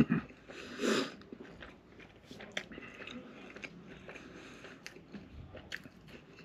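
A person chewing a mouthful of double Big Mac close to the microphone, with many small wet mouth clicks and a short louder noise about a second in.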